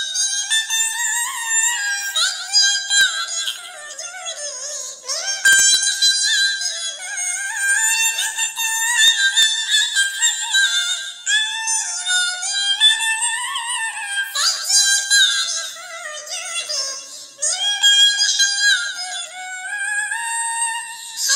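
Very high-pitched, synthetic-sounding voice singing a sholawat melody unaccompanied, in long held notes that slide up and down.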